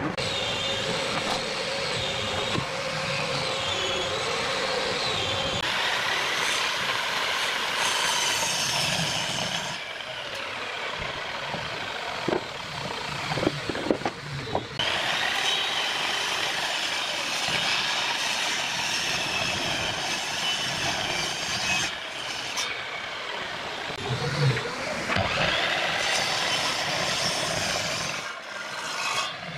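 Electric mitre saw running and cutting through wooden blocks, its motor whine dipping and recovering under load several times.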